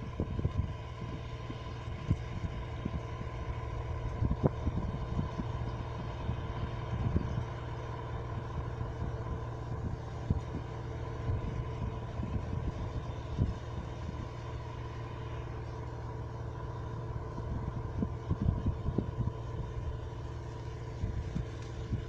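Claas Dominator 108 combine harvester running steadily while harvesting corn: a continuous engine and threshing drone with a steady high whine. Wind buffets the microphone now and then, most near the start and in the last few seconds.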